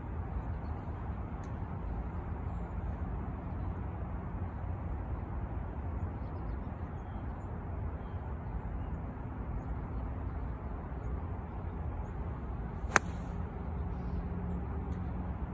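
A single crisp strike of an 8-iron hitting a golf ball off turf near the end, over a steady low rumble in the background.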